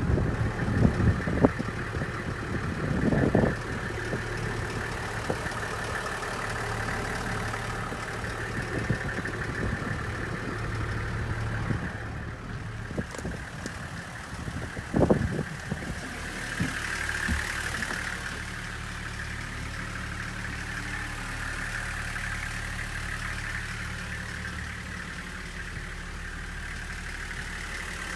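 Toyota Coaster's 1HZ 4.2-litre straight-six diesel idling steadily, with a few thumps near the start and one sharp knock about halfway through.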